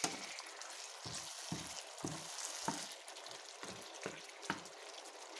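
Beef apritada in tomato sauce sizzling in a pan, with a steady hiss, while a wooden spatula stirs it and knocks against the pan in a series of dull knocks.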